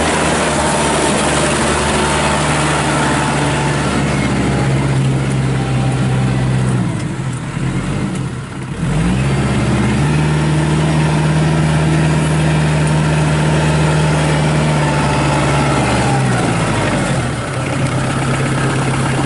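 Kubota L4740 compact tractor's four-cylinder diesel engine running as the tractor drives, its speed dipping and picking back up about eight seconds in, then dropping to a lower idle near the end.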